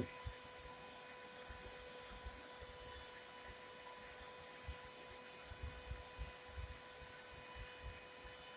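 Faint steady electrical hum, with a few soft low thumps scattered through it.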